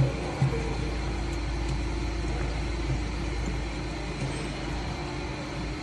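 Ribbon blender running steadily: an even low rumble with a faint held hum as the ribbon agitator turns through the powder mix.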